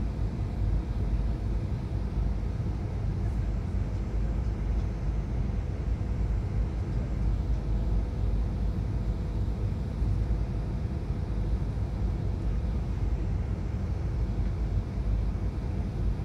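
Steady low rumble inside a jet airliner's cabin on final approach, engine and airflow noise heard from a window seat, with a faint steady hum over it.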